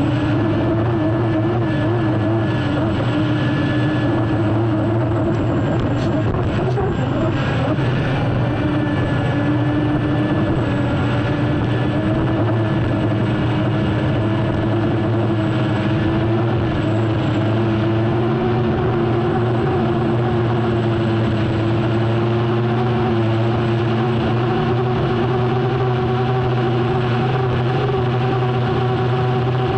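Unlimited hydroplane's turbine engine running steadily, recorded onboard, with a high steady whine over the engine note; the pitch wavers in the first few seconds, and a few short knocks come about six to seven seconds in.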